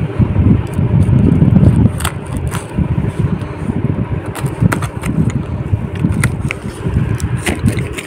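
Plastic-wrapped cardboard box being pulled and torn open by hand: irregular rustling and scraping with many sharp crackles of tearing card and film, over heavy low rumbling.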